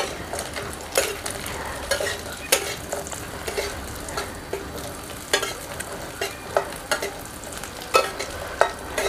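Chopped cashews and almonds frying in hot ghee in a metal kadhai, with a steady sizzle. A metal spatula scrapes and clinks against the pan every second or so as they are stirred.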